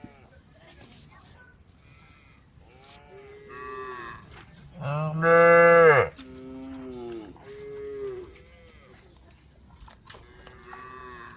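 Cows mooing: a run of calls, with the loudest and longest, about a second long, near the middle and shorter, quieter moos before and after it.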